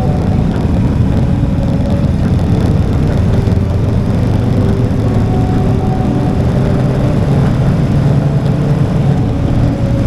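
Motorcycle engine running steadily under way, with a continuous rush of road and wind noise.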